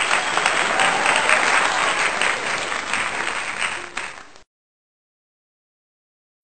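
Applause from many people clapping, tapering slightly and then cutting off abruptly about four seconds in, followed by total silence.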